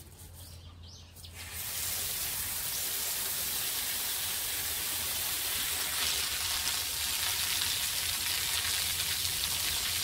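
Water pouring steadily in a hissing stream, starting about one and a half seconds in, as drinking water is given to a hen and her chicks. A few faint chick peeps come just before the pour.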